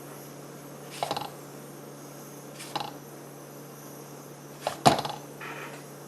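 A few sharp clicks and knocks of small tools and parts being handled on a workbench, about three in six seconds with the loudest near the end, over a steady low hum.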